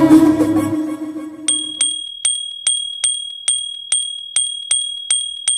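The song's backing music ends on a held note that fades out over the first two seconds. Then a bell sound effect for a subscribe prompt rings over and over, about two and a half dings a second, each strike sharp over a high ringing tone that carries on between them.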